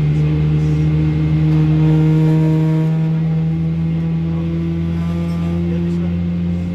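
Steady drone inside a Boeing 777-300ER's cabin: a strong low hum with fainter higher tones over it and a wash of air noise.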